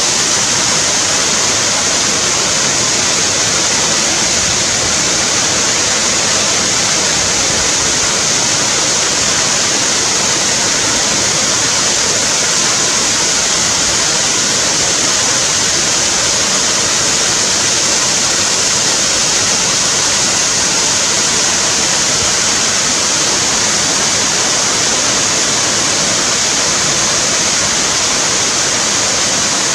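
Waterfall: falling water rushing with a loud, steady, hissing noise that does not change.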